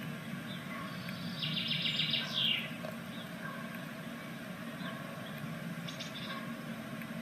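Great tit giving a quick run of high chirps about a second and a half in, ending in a falling note, then a few faint high notes near the end, over a steady low hum.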